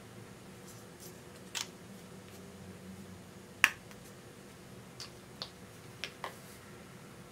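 A few sharp plastic clicks and taps from handling a glitter glue tube: one clear click early on, the loudest a little past halfway, then four lighter clicks close together near the end.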